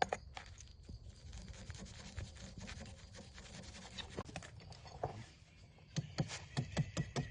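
Hand work on trap materials: scratching and rubbing with scattered clicks, then a quick run of sharp taps, about four a second, from about six seconds in.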